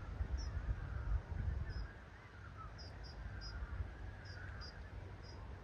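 Wind buffeting the microphone with gusty low rumbles, strongest in the first two seconds. Birds call faintly throughout: a string of short high chirps, with lower, wavering calls underneath.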